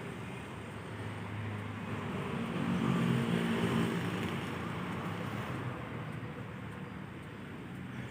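A motor vehicle passing by, its engine growing louder to a peak about three seconds in and then fading, over a steady background of road noise.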